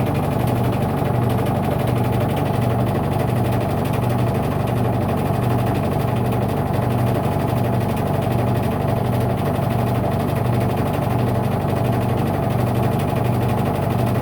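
Electrolux washing machine running with a steady low hum that pulses slightly and evenly, a noise its owner finds excessive.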